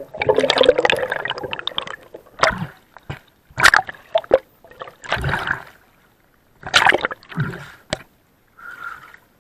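Water bubbling and gurgling around a diver's camera as it comes up from underwater, then a series of separate splashes at the surface.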